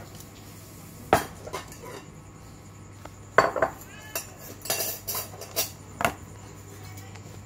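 Dishes and cutlery clinking and knocking on a table as plates and bowls are handled: about half a dozen separate sharp clinks, the loudest about a second in and again past three seconds.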